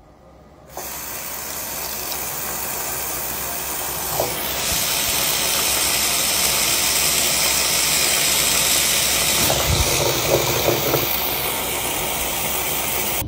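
Bathroom sink faucet turned on, water running from the tap into the basin with a steady hiss that starts about a second in.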